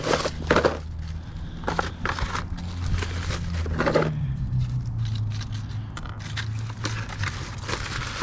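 Hand tools clicking and scraping on metal parts during work on a motorcycle handlebar switch, with a steady low hum underneath that shifts in pitch about halfway through.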